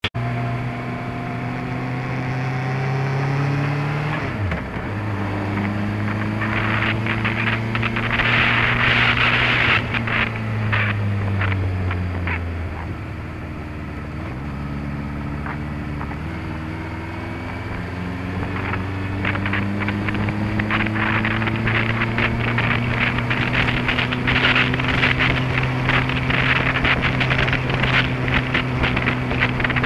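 Honda CBF600S inline-four engine heard from an onboard camera while riding: the engine note rises and falls with the throttle, dropping sharply about four seconds in, sagging again near the middle and climbing steadily after that. Wind buffets the microphone as speed picks up.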